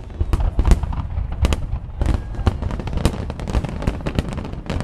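Aerial fireworks shells bursting, a rapid run of sharp bangs over a continuous low rumble, coming thicker and faster in the second half.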